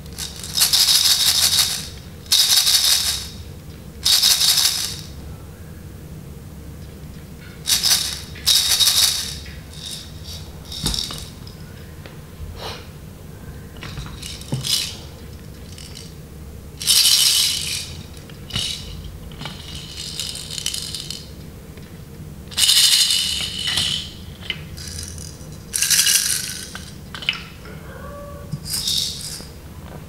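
Plastic baby rattles shaken by hand, the loose beads inside making a bright, dry rattling in about a dozen short bursts of up to a second each, with pauses between shakes and some shakes softer than others.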